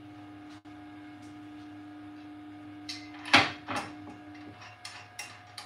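Steady hum of the Elegoo Mars 3 resin printer's Z-axis motor raising the build plate, stopping about four and a half seconds in. About three seconds in, a loud clatter as the resin vat is set down into the printer, followed by several lighter clicks and knocks.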